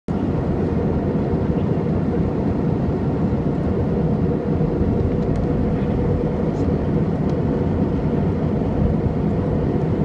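Steady roar of an airliner cabin in flight: jet engines and rushing air, with a faint steady hum running through it.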